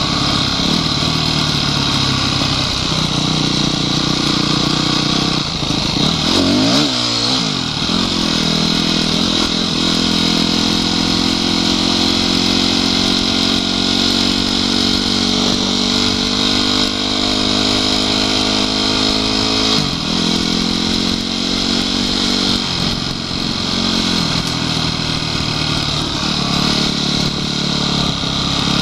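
Honda CRF250X enduro bike's single-cylinder four-stroke engine running under way on a dirt track. Its note wavers about six seconds in, climbs slowly, then drops abruptly about twenty seconds in, with a steady hiss over it.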